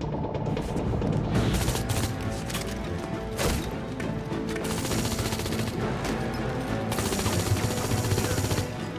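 Action-film soundtrack: a driving music score under rapid gunfire, with a sharp hit about three and a half seconds in and bursts of shots filling the second half.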